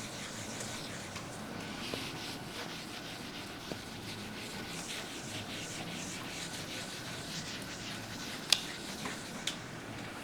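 Writing on a surface: a run of short rubbing strokes, with two sharper taps near the end.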